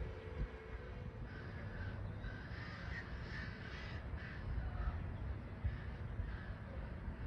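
A bird calling: a series of short, repeated calls, about two a second, that fade out after about five seconds, over a low rumble.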